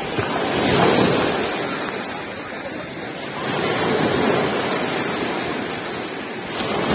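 Sea surf washing onto a beach, swelling and falling back three times.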